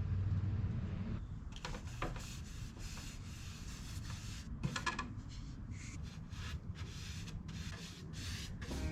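Hand work on a wooden furniture piece: a run of short, irregular rubbing and scraping strokes with a few light knocks.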